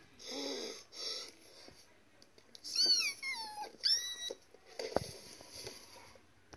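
A voice making breathy huffs, then a few high, squeaky whimpering cries that slide down in pitch, with a single sharp knock about five seconds in.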